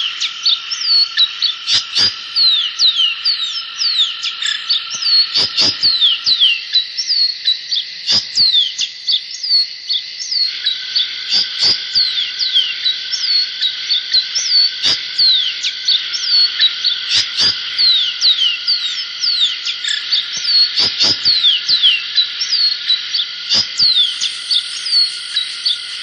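A dense outdoor animal chorus of many short, falling, whistled chirps, several a second, over a steady high-pitched drone. Occasional sharp clicks stand out above it.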